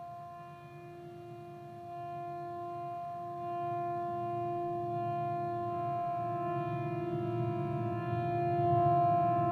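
Electric guitar drone through effects pedals and Orange amplifiers: several steady held tones layered over a low rumble. It swells gradually louder, and the middle tone starts to waver slightly about six seconds in.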